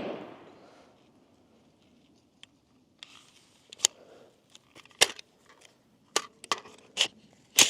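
The echo of a rifle shot dies away in the first second. Then comes a string of irregular, sharp metallic clicks and clacks, about a dozen, growing louder toward the end: the handling sounds of the rifle and gear between shots.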